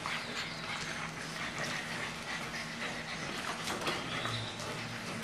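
English bulldog puppies scuffling and playing on a tiled floor: many light, irregular clicks and scrapes of paws and claws on the tile, with small dog noises mixed in.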